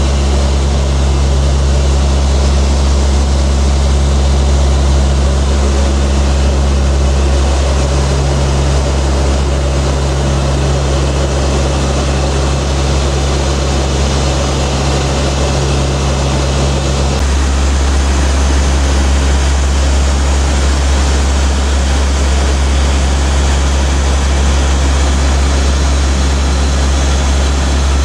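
Drone of a C-130's four Allison T56 turboprop engines heard inside the aircraft in flight: a loud, steady low hum with propeller tones. About two-thirds of the way through, the sound changes abruptly at a cut and the higher steady tones drop out.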